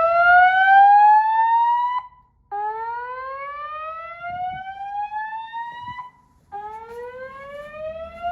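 Fire alarm voice-evacuation speakers sounding the slow whoop tone: loud sweeps rising steadily in pitch for about three and a half seconds each, separated by half-second pauses. One sweep ends about two seconds in, a full sweep follows, and a third begins near the end.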